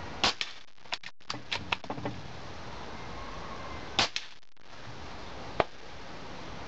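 Two shots from a .25 calibre Gen 2 Marauder PCP air rifle, about four seconds apart, each a sharp crack followed at once by a shorter second crack. Between them comes a quick run of small clicks as the bolt is worked to load the next pellet, and there is one more sharp click near the end.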